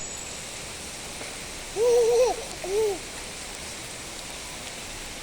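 Steady rain falling, an even hiss. Two short high, wavering vocal calls cut through it about two seconds in, the second shorter.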